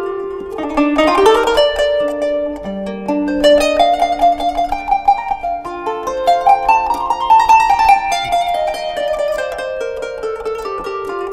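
Kanun, the Turkish plucked zither, playing a solo melody in quick runs of plucked notes. The line climbs through the middle and steps back down toward the end.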